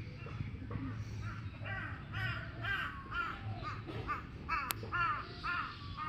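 A bird giving a run of short, harsh, arched calls, about two a second, over a steady low hum, with one sharp click a little before the end.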